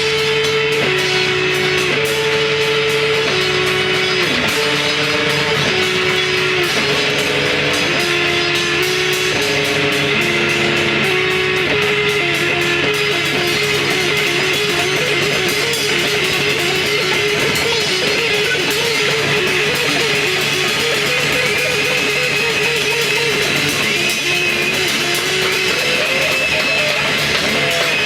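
Loud guitar-led music with electric guitar: a melody of held notes stepping up and down, which turns into a quickly wavering, trilled line about halfway through, over a dense steady wash of sound.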